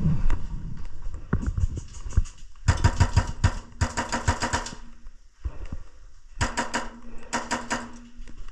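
Airsoft guns firing four rapid full-auto bursts, the first two about a second long and the last two shorter, with a steady motor hum under each burst. Scattered thumps come in the first couple of seconds.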